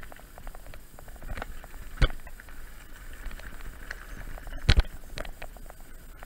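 Mountain bike rolling over a gravel trail: tyres crunching on loose stones, and the bike rattling and clicking. Two hard knocks land about two seconds in and just before five seconds.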